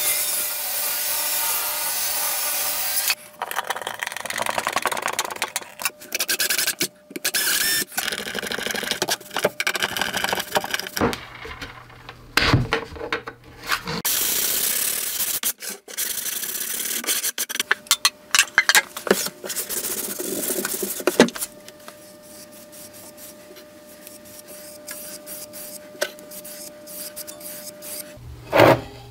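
Woodworking sounds in quick succession: a table saw cutting a sheet of plywood, loud and steady for about three seconds, then short spells of sawing, scraping, rubbing and knocking on wood, growing much quieter for the last several seconds.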